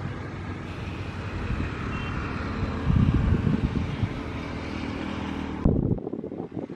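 Indian Railways diesel locomotive running past: a steady engine drone with a rushing noise over it. Near the end it cuts off suddenly, leaving quieter wind noise on the microphone.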